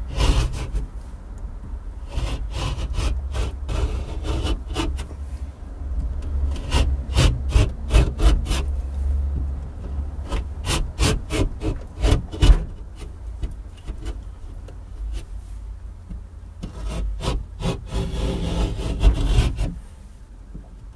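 Stanley knife blade cutting into plasterboard: repeated short scraping strokes along the cut line, coming in runs of quick strokes with pauses between.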